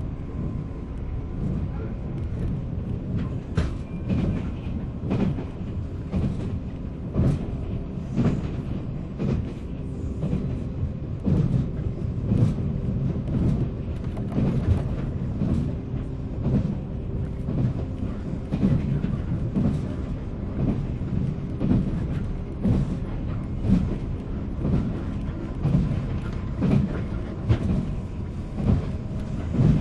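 Running noise inside a JR 485-series electric multiple unit motor car: a steady low rumble with a hum from the traction motors and gearing, and frequent clicks of the wheels passing over rail joints.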